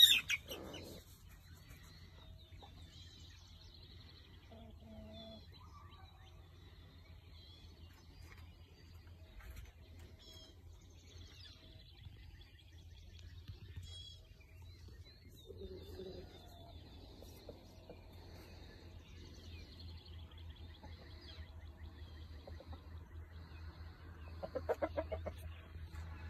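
Chickens clucking softly, with scattered short high chirps throughout. There is a brief loud burst at the very start and a louder clucking call near the end.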